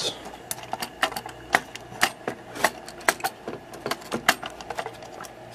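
Irregular light clicks and taps of a circuit board and its plastic actuator housing being handled and worked loose by hand.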